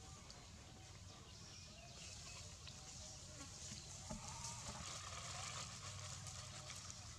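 Faint, thin calls of a baby long-tailed macaque over a steady low hum.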